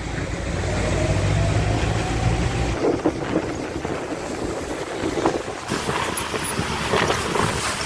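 Diesel engine of heavy earthmoving machinery running steadily, with a faint rising whine. The engine hum drops away about three seconds in, leaving a noisy rumble with scattered knocks and clanks.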